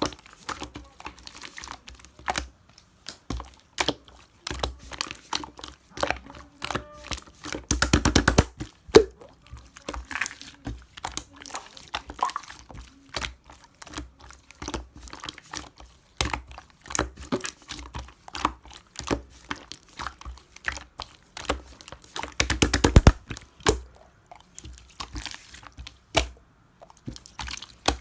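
Hands squishing and poking slime: an irregular run of small clicks and pops, with two stretches of fast crackling, about eight seconds in and again near twenty-three seconds.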